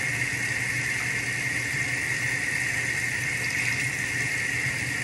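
A steady rushing noise with a low hum underneath, unchanging throughout.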